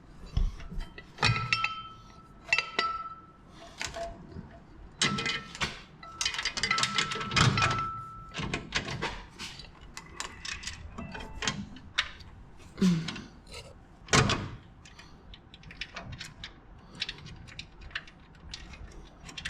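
Workshop handling noise: irregular metallic clinks, taps and knocks of hand tools and metal parts, some ringing briefly, with one louder knock about fourteen seconds in.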